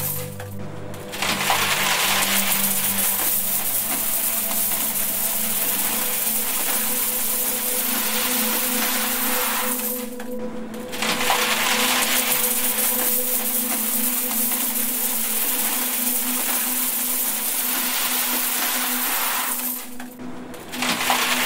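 A stream of coins pouring into a metal tin full of coins, a dense continuous clinking and jingling that breaks off briefly about ten seconds in and again near the end before starting up again. Steady low humming tones run underneath.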